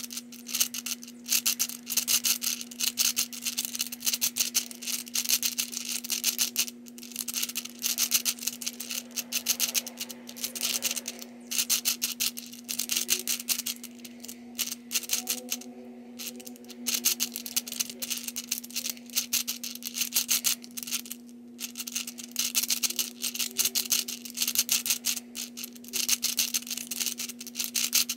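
Balls of a Hungarian Rings puzzle clicking and rattling in their tracks as the rings are turned quickly, in long runs of rapid clicks with a few brief pauses.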